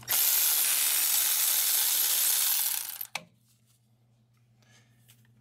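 Power tool spinning out a bolt: a steady hiss for nearly three seconds that tails off, then a single click.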